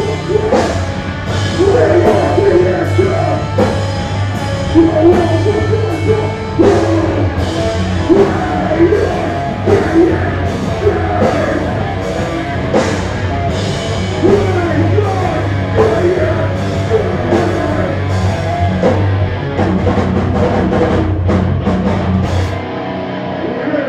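Hardcore band playing live: distorted electric guitars, bass and drums, with a vocalist singing into a microphone over them. The bass drops out shortly before the end.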